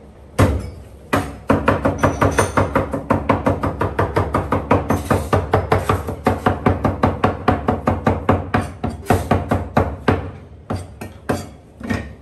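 Cleaver chopping on a round wooden chopping board in rapid, even strokes, about five a second. A single chop comes first, then a brief gap, and the strokes thin out and slow near the end.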